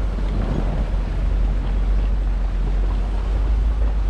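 Jeep driving on an off-road trail: a steady low rumble of engine and drivetrain mixed with wind buffeting the microphone.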